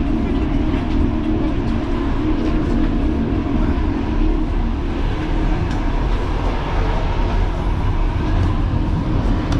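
Sleeper train running along the track: a steady low rumble with an even hum, unchanging throughout.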